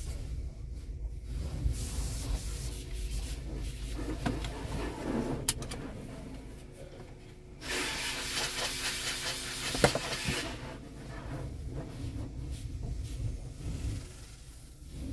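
Peco car-wash tunnel heard from inside the car's cabin: water and soap spray hiss against the windshield and body in waves, over a steady low rumble of the tunnel machinery. The spray is loudest for a couple of seconds about halfway through, with a sharp knock in the middle of that burst.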